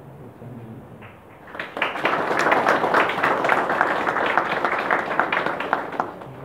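Audience applauding, the clapping starting about one and a half seconds in and dying away shortly before the end.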